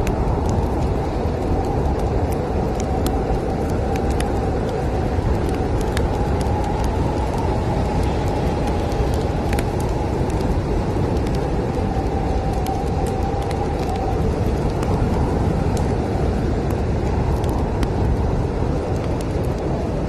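Snowstorm wind blowing as a steady deep rumble, with a faint whistling howl through the middle stretch, under the scattered pops and crackles of a wood fire.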